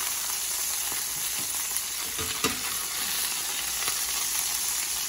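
Chicken thighs sizzling steadily in hot fat in a cast iron skillet, a sound close to deep-frying. A couple of light clicks of metal tongs against the pan come about two seconds in as the pieces are handled.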